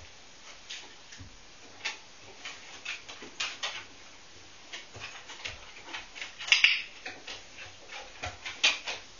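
A dog's claws ticking and tapping irregularly on a bare wooden floor as it moves about, with a louder scratchy scuffle about six and a half seconds in.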